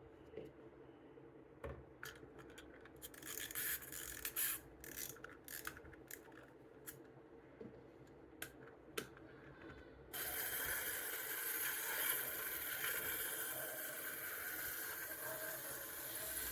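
Clicks and scrapes of a small plastic wind-up toy bus being handled. About ten seconds in, its clockwork motor is let go and whirrs steadily as the bus runs along a cardboard track.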